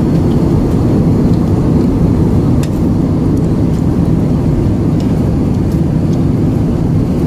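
Steady cabin noise of a jet airliner in flight, engines and airflow heard from inside the cabin as an even low rumble that does not change.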